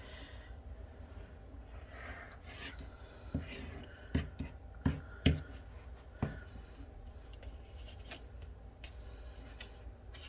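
Fine-tip craft glue bottle scratching and squeezing along the edges of a paper square, with a few sharp knocks in the middle as the bottle and hands tap the table, then the light rustle of paper being lifted and handled.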